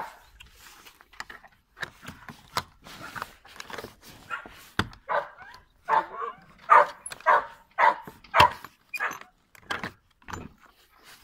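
A dog barking in a series of short barks. They come sparsely at first, then about twice a second and louder through the second half. A few sharp knocks come in between.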